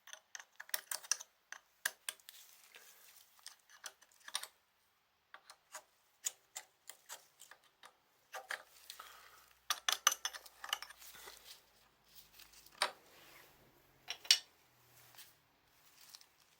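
Hand tools clicking and clinking against small steel engine parts as a lock washer is worked off on a motorcycle engine: irregular light metallic taps, with a few louder knocks about ten, thirteen and fourteen seconds in.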